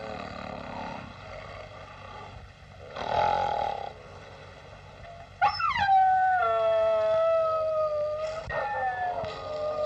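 A dog howling: a long howl starts about halfway through, leaps up in pitch and slides down into a slowly falling, held note for about three seconds, then a shorter falling howl follows near the end. A short rasping sound comes about three seconds in.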